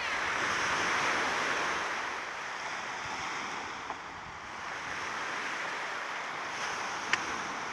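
Small waves washing up a pebble shore, with wind buffeting the microphone; the wash swells about a second in and then eases. A couple of faint light clicks, one near the end.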